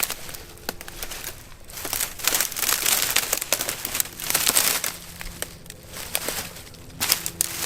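Dry brush and small branches being broken and torn away by hand, crackling and snapping in loud bursts with short pauses between, to clear a shooting lane.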